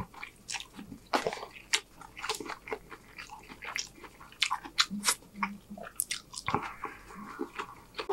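Close-miked chewing of chow mein noodles and sauce-glazed chicken: a run of irregular wet smacks and clicks from the mouth.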